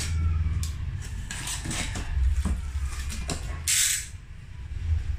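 Utility knife slitting the packing tape on a cardboard box, with scratchy scrapes and scattered clicks, then a short, loud rasp of cardboard about four seconds in as the box flaps are pulled open.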